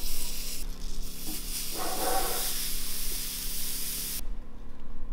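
Whole bell peppers and tomatoes sizzling on a hot grill grate over charcoal: a steady hiss that stops suddenly about four seconds in.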